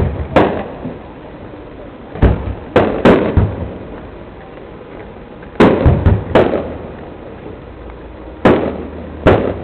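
Aerial fireworks bursting: about nine sharp bangs in clusters of one to three, each trailing off in a rumbling echo.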